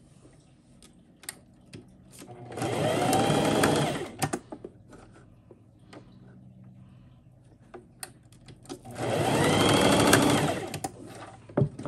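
Singer electric sewing machine running in two short bursts, stitching two seams, each burst speeding up and then slowing to a stop. Light clicks and fabric handling between the bursts as the piece is repositioned.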